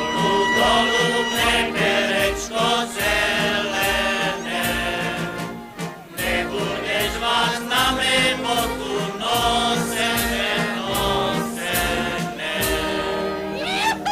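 A group of men singing a Slovak folk song together, with instrumental accompaniment keeping a steady beat underneath.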